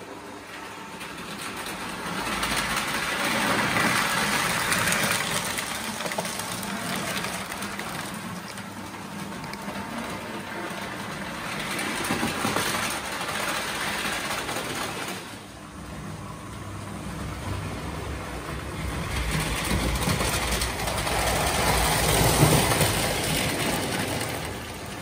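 Postwar Lionel O-gauge NW2 diesel switcher model running on three-rail track, its motor and wheels making a steady mechanical rumble. The sound swells and fades several times as the locomotive comes closer and moves off, and is loudest near the end.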